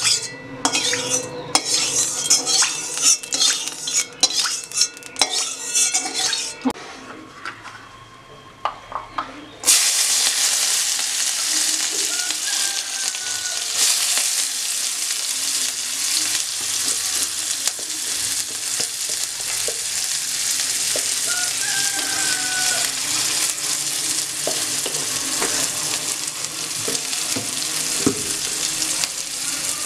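A metal wok clinking and knocking under a spoon for the first several seconds, then, about ten seconds in, a sudden loud sizzle as sliced onion and garlic go into hot oil, frying steadily from then on with an occasional stirring knock.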